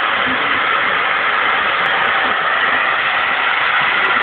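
Handheld hair dryer blowing steadily: a dense rush of air with a faint high motor whine.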